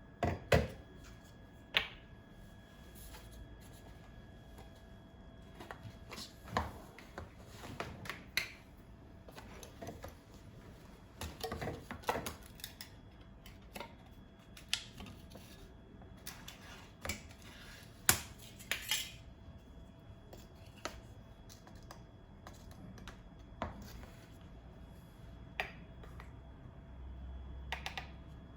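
Scattered light clicks, taps and short rustles of small objects being handled, over a faint steady hum.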